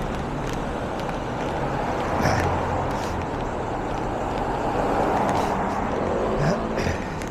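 City street traffic: a steady wash of motor vehicles running and passing, with a low engine hum and a few short clicks and knocks.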